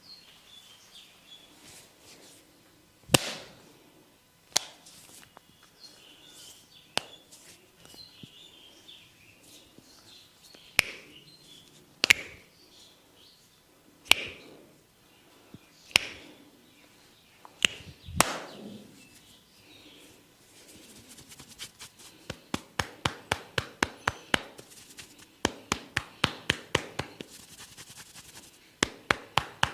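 Hands-on barber head massage: single sharp cracks a second or two apart, then, about twenty seconds in, a fast run of hand taps on the head at about five a second.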